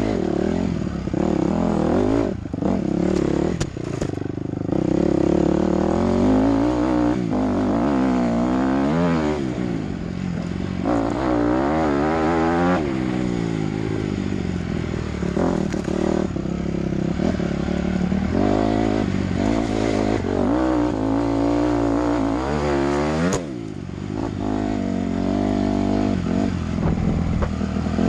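Dirt bike engine on the move, its pitch repeatedly rising and falling as the throttle is rolled on and off. There are a few sharp knocks in the first few seconds while the bike crosses rocks, and a short dip followed by a quick rev a little after twenty-three seconds.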